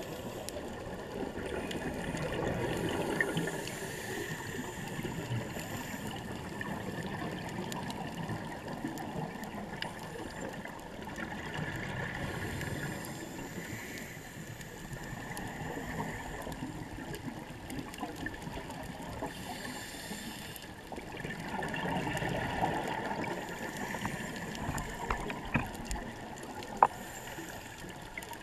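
Underwater ambience with a steady hiss and scattered crackles, and humpback whale song faintly in the background. A single sharp click sounds near the end.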